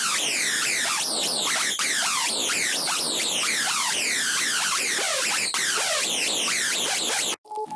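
Xfer Serum software synthesizer playing an FX preset: a dense swarm of overlapping falling pitch sweeps over a hiss, cutting off abruptly near the end.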